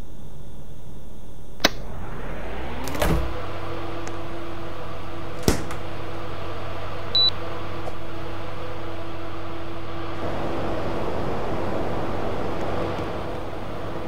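Air conditioner running with a steady hum. After a click, a motor spins up with a rising whine about two to three seconds in and settles to a steady tone; another click follows, then a short high electronic beep, and the running noise eases slightly near the end.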